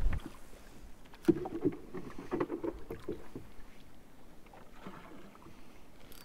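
Small sounds in a rowboat: water lapping against the hull in irregular splashes, with a single knock about a second in.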